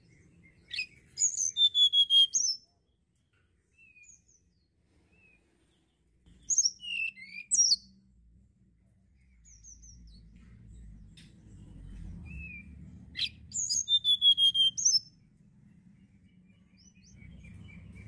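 A tledekan gunung (hill blue flycatcher) singing in three bursts of high, sweet, quickly repeated notes, about a second, six and a half seconds and thirteen seconds in, with soft single notes in between. A low rumble of background noise runs under the second half.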